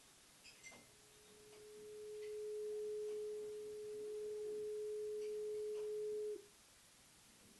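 Thermoacoustic engine, a test-tube resonator with a ceramic stack above a heated nichrome coil, sounding a steady, pure mid-pitched tone: the heat across the ceramic is being turned straight into sound. The tone swells in over about a second and a half, holds steady, then cuts off suddenly about six seconds in.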